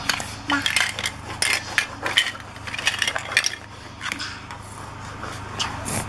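Hollow plastic toy vegetables clattering and knocking against each other as hands rummage through them in a plastic basket, in quick irregular clicks.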